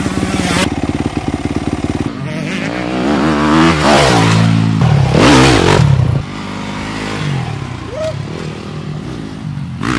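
Dirt bike engine idling close by, then revved about two seconds in, its pitch rising and falling, loudest around four to six seconds in; after that it runs on more faintly.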